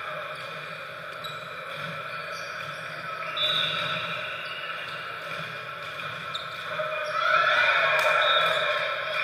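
Sneakers squeaking on a hardwood gym floor, with a volleyball being struck, echoing in a large gymnasium. The squeaks and hits are loudest about seven to eight seconds in, as a rally gets going.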